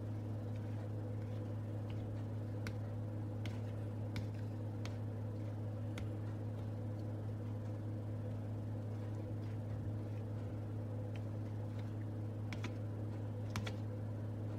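A steady low hum with scattered faint, irregular clicks and ticks.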